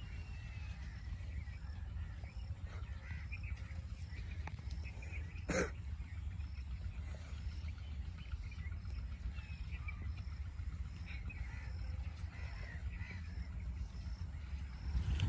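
Outdoor rural ambience: a low steady rumble, faint bird calls, and a faint high chirp repeating about every half second. One sharp snap comes about five and a half seconds in.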